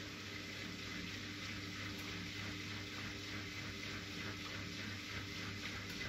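Siemens Siwamat Perfecta SL washing machine running a delicates wash. Water swishes in a faint regular pulse, about twice a second, over a steady machine hum.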